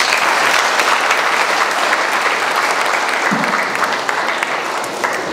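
Audience clapping: full applause that begins at once and eases slightly near the end.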